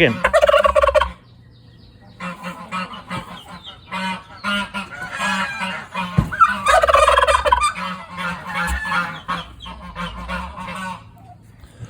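Domestic tom turkey gobbling in several rattling bursts, loudest about seven seconds in, over a repetitive low thumping that pulses a few times a second.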